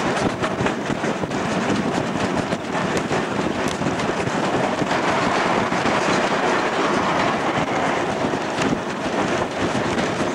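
Ok22 steam locomotive running along the line, heard from its cab window: a loud steady rush of running noise with wheels clicking over the rail joints. The sound fills out briefly around the middle as the engine passes under a road bridge.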